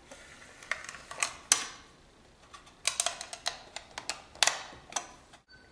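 Irregular plastic clicks and knocks as a disposable brew basket is fitted into a single-cup hotel coffee maker, with a handful of sharper snaps clustered near the middle and toward the end.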